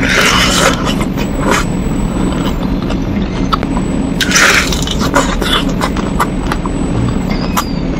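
Close-up eating sounds: two bites into a whole balado shrimp in its shell, at the start and about four seconds in, with small chewing and mouth clicks between, over a steady low background hum.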